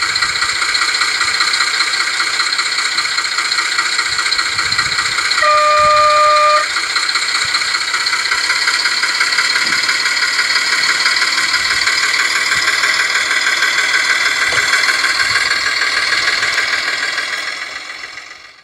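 Sound card in an Accucraft Baguley model diesel locomotive playing a diesel engine idling with a fast, even rattle through its small speaker. About a third of the way in it gives one steady horn blast lasting about a second. The sound fades out near the end.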